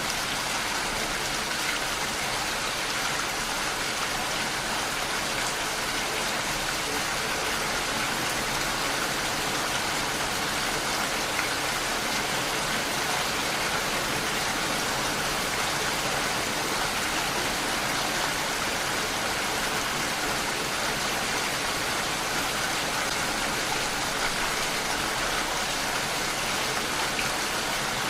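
Steady rain falling without a break, an even hiss with no single drops standing out.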